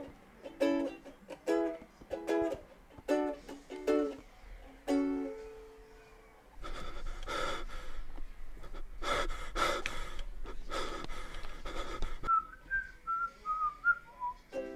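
Upbeat ukulele background music with plucked notes. About halfway through, the plucking gives way to several seconds of rough, noisy sound, then a short whistled tune.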